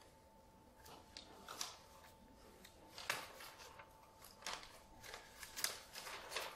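Sheet of paper being unfolded and handled, giving light rustles and crinkles at irregular intervals.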